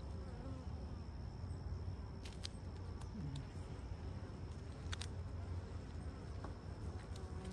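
Honeybees buzzing around an open hive over a steady low background rumble, with a couple of faint clicks, one about two and a half seconds in and another around five seconds.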